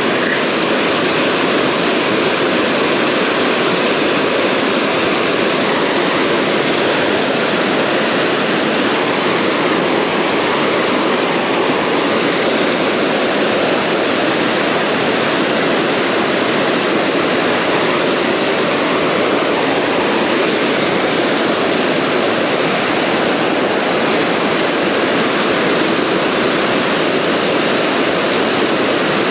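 River whitewater rushing over a rocky ledge and riffle in a steady, loud roar. The river is running high with water released from the dam.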